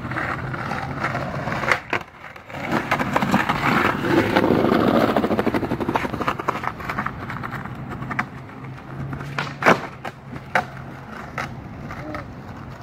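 Skateboard rolling over city pavement, a continuous rough rumble of the wheels broken by several sharp clacks, the loudest about ten seconds in.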